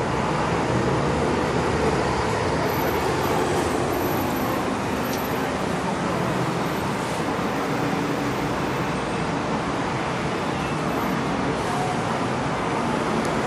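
Steady background hum of road traffic, with no distinct events.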